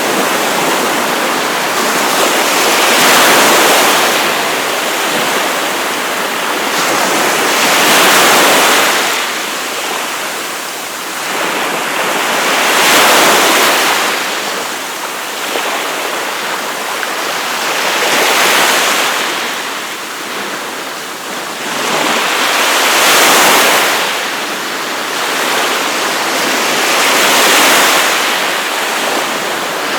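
Ocean surf washing onto a beach, a wave breaking about every five seconds. Each one swells up and falls away into a steady hiss before the next.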